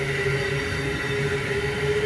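Amtrak Acela II electric high-speed trainset passing close by at speed: a steady rolling rumble from the cars with a sustained whine over it.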